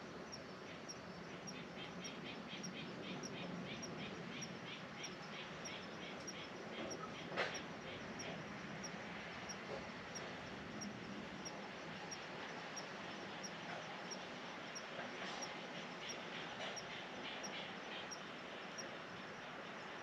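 Steady rain falling, with crickets chirping in evenly spaced, repeated chirps. A single sharp tap about seven seconds in is the loudest moment.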